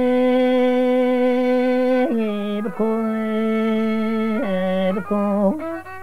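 A man singing a Dersim kılam, a Zazaki sung lament: one long held note for about two seconds, then a slightly lower held note, then shorter notes joined by quick turns in pitch near the end.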